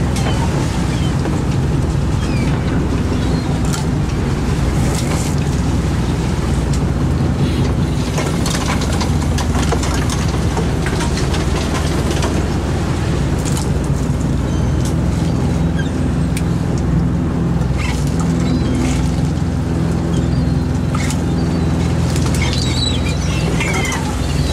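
Inshore fishing boat's engine and net hauler running steadily as a gill net is hauled aboard, with scattered clicks and knocks from the net and gear. Gulls call near the end.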